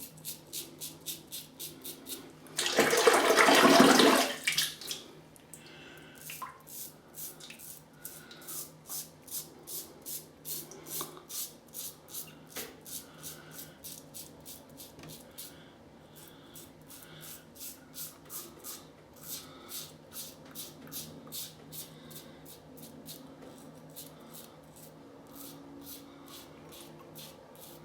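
Gillette Tech safety razor scraping through lathered stubble in quick, short strokes, about four a second. A water tap runs loudly for about two seconds near the start.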